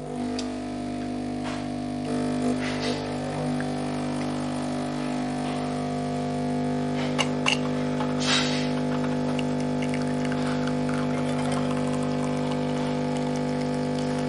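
Miele CM6 coffee machine's pump humming steadily as it brews an espresso, with a few short clicks about seven and eight seconds in. It runs smoothly with no squeal.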